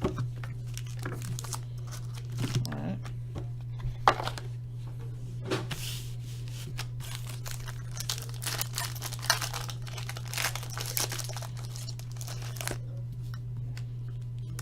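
Trading card pack wrappers being torn open and crinkled: scattered rustles and crackles, with a sharp snap about four seconds in. A steady low electrical hum runs underneath.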